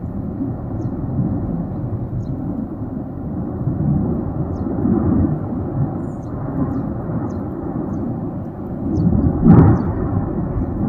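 Erupting Tajogaite volcano rumbling continuously, a deep roar that swells and eases, with one louder explosive blast near the end.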